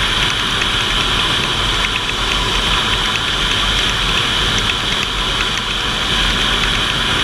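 Steady engine and tyre noise from an off-road vehicle riding along a gravel road, picked up by an onboard camera, with a low wind rumble on the microphone. It holds even throughout, with no revving or gear changes.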